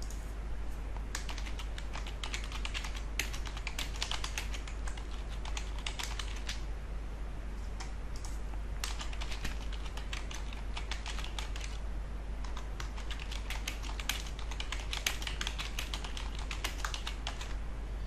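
Typing on a computer keyboard: bursts of key clicks separated by short pauses.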